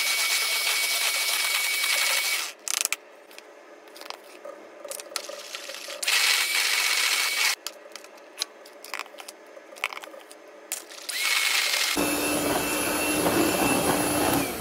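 Kraft Line electric hand mixer whining as it beats pancake batter in a plastic bowl. It runs in bursts, switched off and on several times, with short clicks and knocks in the pauses. Near the end it runs on with a deeper hum under the whine.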